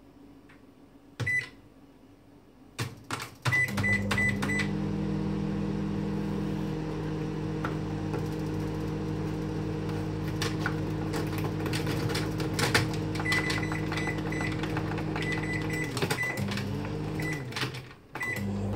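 LG Wavedom grill microwave oven: keypad beeps and dial clicks, then the oven starts running with a steady hum about three and a half seconds in. More beeps come as buttons are pressed while it runs, and near the end it cuts out briefly twice and starts again.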